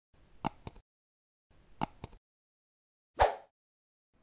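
Sound effects of an animated logo intro: two pairs of short, sharp clicks, like mouse clicks on a subscribe button, then a short burst that fades quickly near the end, with dead silence between.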